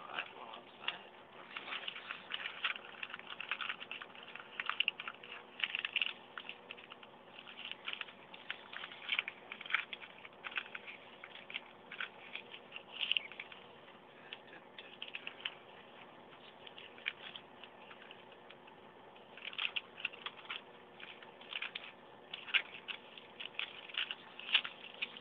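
Newspaper being folded and creased by hand: irregular crinkling and rustling in clusters, with a lull of a few seconds in the middle, over a faint steady hum.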